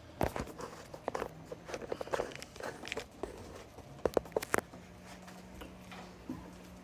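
A new rubber gasket being pushed and worked onto the edge of a wing-window glass by hand: scattered rubbing and creaking with irregular clicks, and a quick cluster of sharp clicks about four seconds in.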